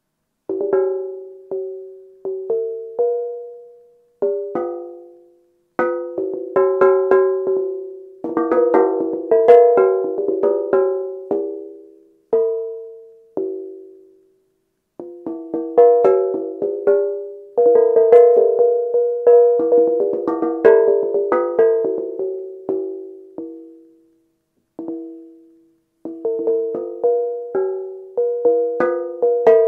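Steel tongue drum played as melodic percussion: single struck notes ring and fade, in loose phrases broken by short silent pauses. A few passages hold quicker runs of overlapping strikes.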